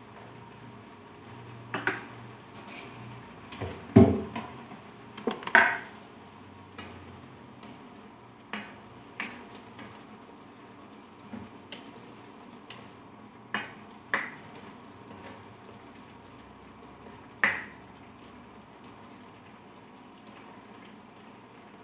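Kitchenware being handled at a sink: scattered clinks and clatters of dishes and utensils. They are several and close together in the first six seconds, the loudest about four seconds in, then fewer and farther apart, with a last sharp one about seventeen seconds in.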